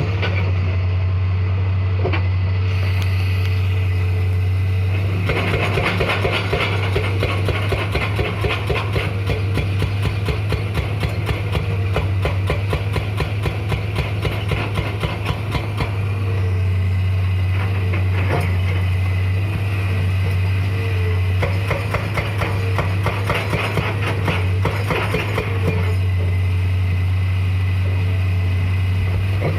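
Hitachi excavator's diesel engine running with a steady low drone, joined for two long stretches, about five seconds in and again past twenty seconds, by rapid clattering.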